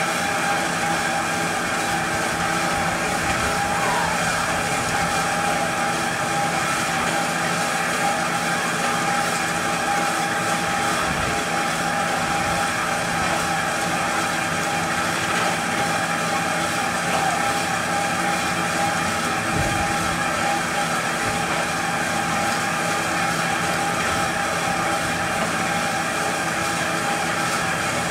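Steady mechanical drone of carnival ride machinery, with several fixed whining tones that hold unchanged throughout.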